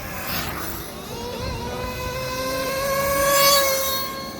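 Electric RC cars' brushless motors whining as they race round the track: one steady high whine that climbs slightly and falls back, swelling loudest as cars pass close about three and a half seconds in.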